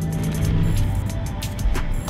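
Background music with sustained tones and percussion.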